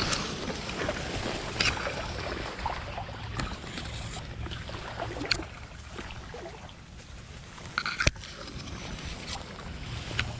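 Water sloshing and splashing with rustling, from movement through marsh water, and one sharp click about eight seconds in.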